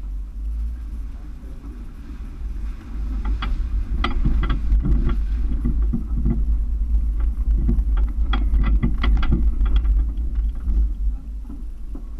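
Toyota FJ Cruiser's V6 engine running as the truck drives slowly over a rough dirt trail, picked up by a camera mounted on the vehicle. A low rumble throughout, with a run of knocks and rattles from the bumps between about three and eleven seconds in.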